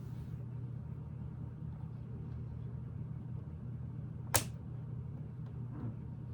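A sharp click of Lego plastic pieces snapping together about four seconds in, and a fainter click near the end, over a steady low hum.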